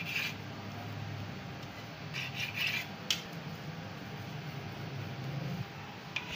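Knife blade scraping and clicking on a stone countertop as flour dough is cut into pieces, a few sharp scrapes near the start and again two to three seconds in, then hands rubbing and rolling dough balls on the counter. A steady low hum runs underneath.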